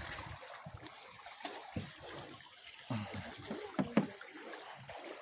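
River water trickling and lapping around a canoe, with faint distant voices and one brief sharp sound about four seconds in.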